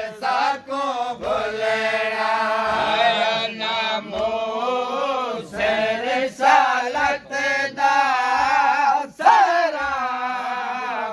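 Male voices chanting a Punjabi noha, a Shia mourning lament, in long drawn-out melodic phrases broken by short pauses for breath.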